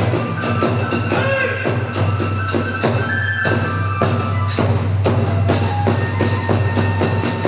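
Kagura music: a drum and small hand cymbals beating a quick, steady rhythm, about four strokes a second, with a bamboo flute playing a few held, wavering notes over it.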